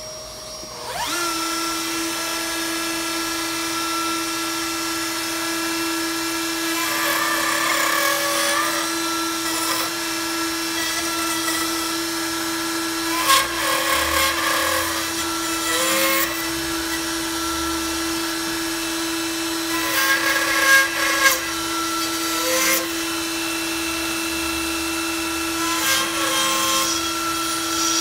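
A router on a pantograph router jig starts about a second in and runs with a steady whine. Several times the bit bites into a pine board, each pass a harsher burst of cutting noise, as the dovetail pins are routed. A dust-extraction vacuum runs underneath.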